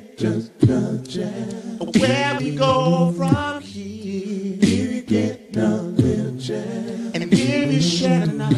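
A man's a cappella vocal performance: sung, sustained vocal lines over beatboxed percussion hits that land about every second and a half.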